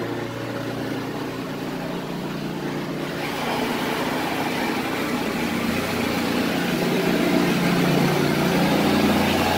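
Automatic car wash wheel brushes spinning against the tires, a steady motor drone that sounds like a lawnmower, over water spraying on the body, heard from inside the car. It gets louder from about three seconds in.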